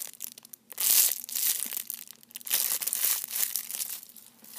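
Clear plastic packaging of a panda squishy crinkling in the hands, in several short rustling bursts.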